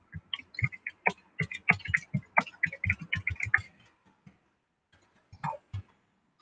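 A quick run of light tapping clicks, several a second, that stops about three and a half seconds in, followed by a few scattered taps near the end.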